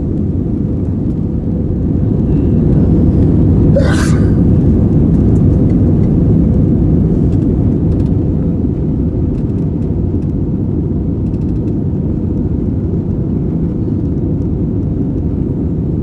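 Airbus A320 cabin noise in flight: a steady low rumble from the engines and airflow, with a faint steady hum above it. It swells slightly for a few seconds, and a brief sharp sound cuts through about four seconds in.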